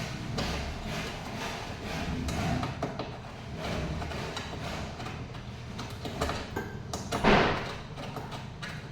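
Repeated clicks and knocks of tools and parts being handled during repair work, with one louder, longer noise about seven seconds in.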